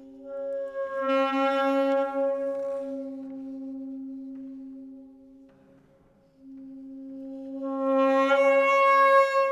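Contemporary chamber music: a saxophone holds one long note that swells loud and bright about a second in, fades almost to nothing partway through, then swells again near the end, over a softer held tone.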